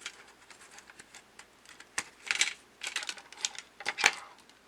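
Irregular small clicks and brief rustles of small magnetic metal parts and balls from a fidget pen kit being handled, with a sharper click about two seconds in and another near four seconds.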